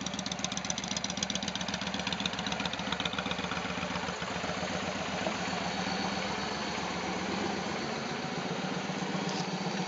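Victory Kingpin motorcycle's V-twin engine idling steadily.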